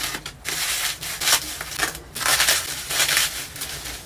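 Bubble wrap crinkling and rustling as it is pulled off a packaged item, in two long scratchy stretches with a short break about two seconds in.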